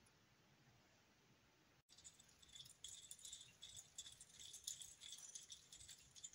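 Pin vise hand drill twisting a small bit into a white plastic model part: rapid, irregular fine scratchy clicks. It starts about two seconds in, after near silence.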